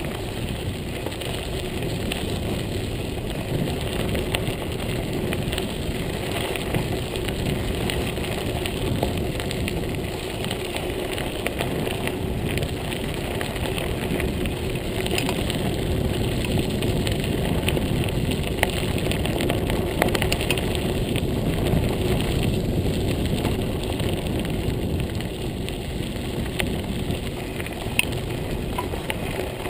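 Montague Paratrooper Pro folding mountain bike rolling along a gravel trail: a steady crunching rumble of tyres on gravel, with a few sharp clicks and rattles from the bike over bumps.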